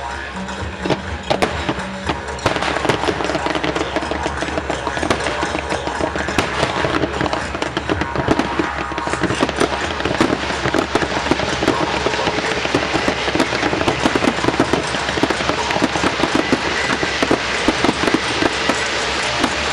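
Fireworks exploding in rapid succession, thickening about two and a half seconds in into a dense, continuous crackle, with music playing underneath.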